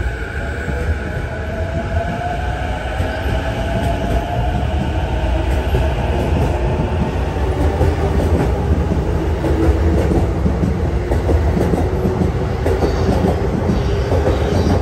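JR East E233-5000 series electric train accelerating away from the platform: the electric whine of its traction motors and inverters rises in pitch over the rumble of the wheels on the rails, growing louder as it gathers speed.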